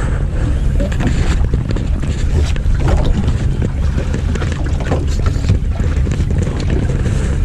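Steady low hum of a boat's engine at sea, with wind buffeting the microphone and scattered small knocks and crackles.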